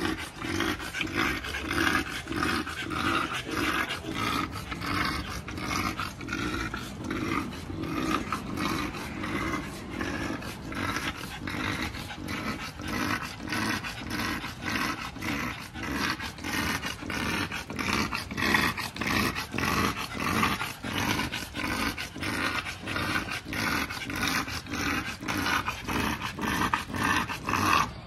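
Exotic bully dogs panting heavily with open mouths, a steady rhythm of about three breaths a second.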